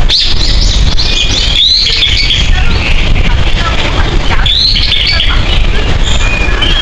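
Several small birds chirping and singing, with many short, quickly sweeping notes overlapping, over a steady low rumble.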